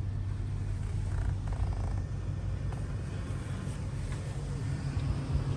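Car engine and road noise, a low steady rumble.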